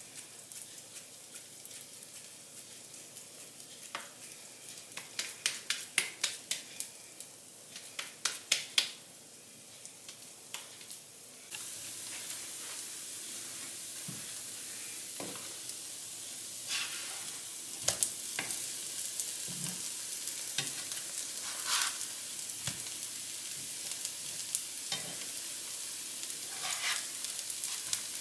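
Hands patting and pressing arepa dough, with a run of quick sharp slaps in the middle of the first part. About eleven seconds in, it changes to arepas frying in oil in a frying pan: a steady sizzle with occasional clicks and scrapes of a spatula turning them.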